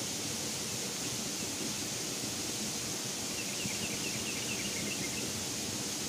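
Steady rushing of a fast-flowing river below a small waterfall, an even hiss with no breaks. A short run of faint, quick high chirps comes in a little past halfway.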